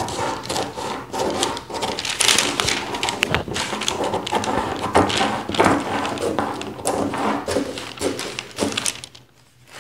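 Scissors cutting along a paper sewing pattern: a run of repeated snips with paper crunching, stopping about nine seconds in.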